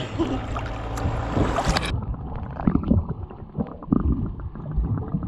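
Water sloshing and splashing at the surface of the sea. About two seconds in the sound turns suddenly muffled, with low underwater gurgling and bubbling as the microphone goes under while snorkelling.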